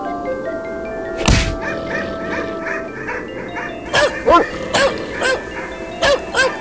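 Film score playing a slow melodic line, cut by one sudden loud hit about a second in. From about the middle a dog barks repeatedly, roughly two barks a second, over the music.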